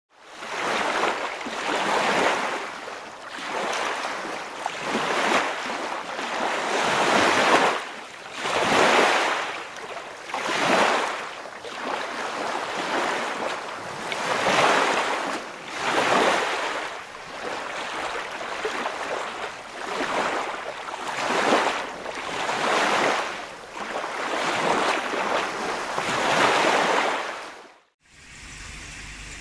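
Surf-like water noise swelling and falling away about every two seconds, like waves washing in on a shore. It cuts off abruptly near the end, leaving a quieter steady hiss.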